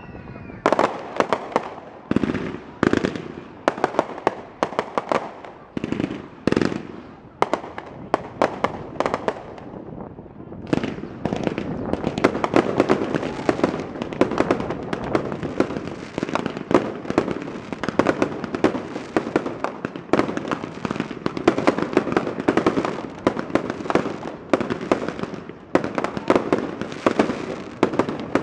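Fireworks going off: separate loud bangs, one or two a second, for about the first ten seconds. Then, about eleven seconds in, a dense, continuous crackling and popping begins.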